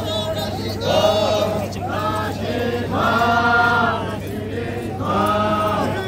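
Group of men's voices chanting together in a traditional Sangtam Naga dance chant, in short phrases about a second long with brief breaks between them. A steady low hum runs underneath.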